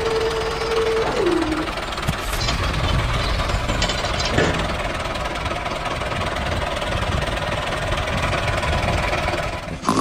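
Tractor engine running steadily with a low knocking chug. A high whine holds for about a second, then drops in pitch and stops about a second and a half in.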